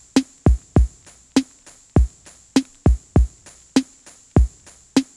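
Background music with a sparse drum-machine beat: deep kick drums in a repeating pattern and a sharper snare-like hit about every 1.2 seconds, over a faint steady high hiss.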